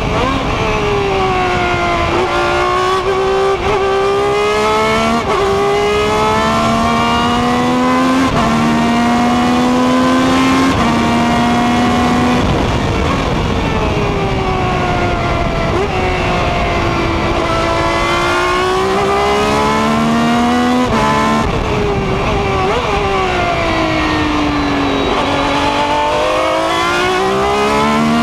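Ferrari 333 SP's 4.0-litre V12 heard from the cockpit at full racing pace: the pitch climbs through the gears with a short break at each upshift, and twice sweeps down and then climbs again as the car slows for a corner and pulls away. A rush of wind and road noise runs underneath.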